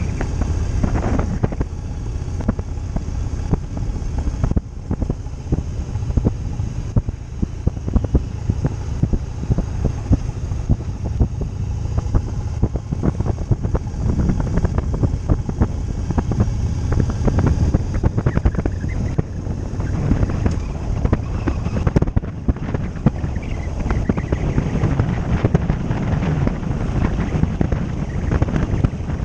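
Motorcycle running on the road, its engine note holding steady under heavy wind noise buffeting the microphone.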